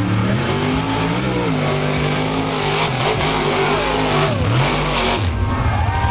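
Mud truck's engine revving hard as it runs through the mud pit, its pitch rising and falling repeatedly.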